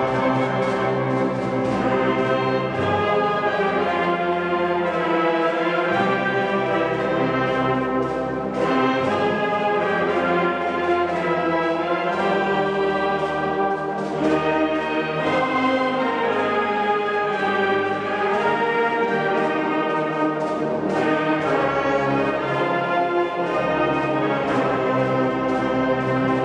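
Orchestral background music led by brass, playing sustained chords at a steady level.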